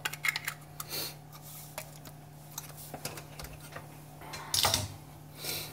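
Light clicks and knocks of small plastic gravel-siphon parts being handled and set down in a sink, most of them in the first second, with a few short rustles.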